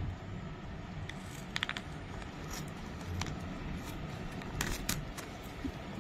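A painting kit's packaging being opened by hand: scattered small clicks, crinkles and scrapes, with a few sharper ticks about a second and a half in and again near five seconds.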